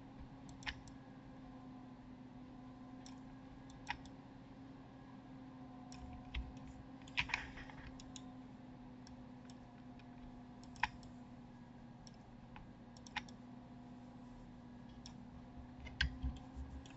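Scattered, faint clicks of a computer mouse and keyboard, a few seconds apart with a quick cluster near the middle and another near the end, over a steady low hum.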